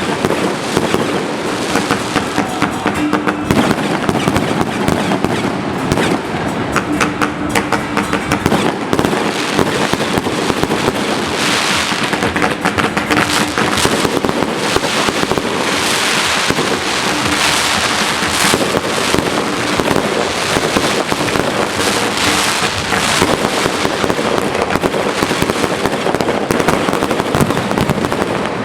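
Fireworks going off in a continuous barrage of rapid bangs and crackling, with louder surges of crackle about twelve and sixteen seconds in.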